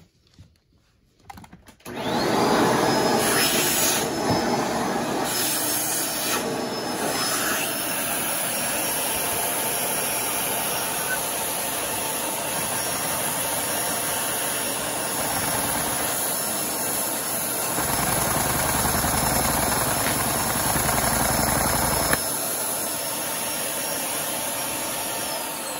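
A vacuum cleaner's motor running as the suction source for a large LEGO V-twin vacuum engine. Its whine rises as it starts about two seconds in, holds steady, then falls away at the end. For about four seconds in the last third, a deeper rapid rumble joins it as the LEGO engine turns over.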